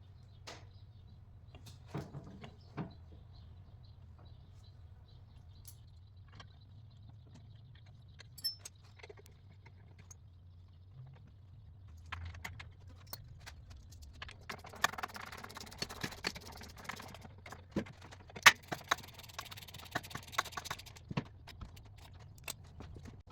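Workshop hand work: scattered clicks, taps and light knocks of tools and small parts being handled. A busier stretch of rattling and rustling runs from about the middle to near the end.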